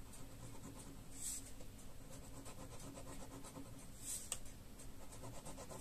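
Pen scratching on paper in quick, repeated hatching strokes, with a couple of longer strokes standing out.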